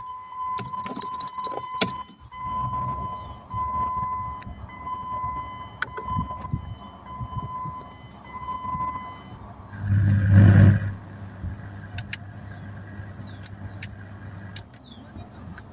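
Keys jangling and the Jeep Grand Cherokee's dashboard warning chime repeating a steady ding as the ignition is switched on. About ten seconds in comes a loud low rumble lasting about a second, followed by a steady low hum.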